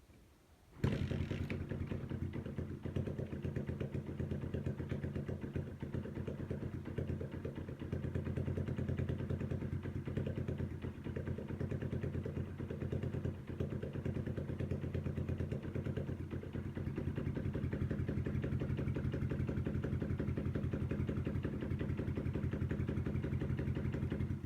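Bajaj Discover motorcycle's single-cylinder four-stroke engine running steadily at idle. It comes in suddenly about a second in.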